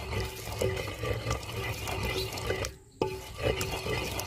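Wooden pestle grinding a wet paste of mint, coriander and green chillies in a terracotta mortar: a repeated wet rubbing and mashing with a pulsing low rumble. It stops briefly and comes back with a sharp click about three seconds in.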